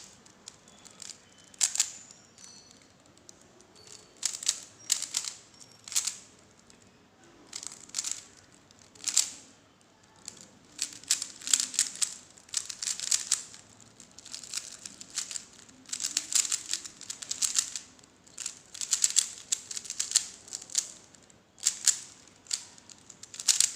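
3x3 Rubik's Cube being turned fast in a speedsolve: runs of quick plastic clicking and rattling as the layers are twisted, broken by short pauses between runs of moves.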